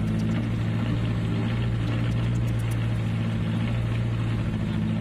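Boat engine running steadily at a constant speed with an even, low hum.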